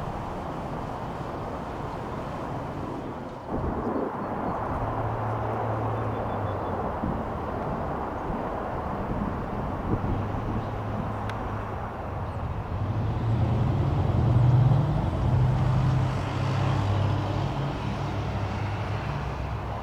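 Freight train passing: a continuous rumble with the low drone of diesel locomotive engines, stepping up a few seconds in and loudest past the middle before easing off.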